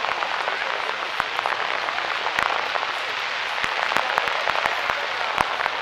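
Aerial fireworks shells crackling and popping in a dense, rain-like stream of small cracks, with a few louder bangs.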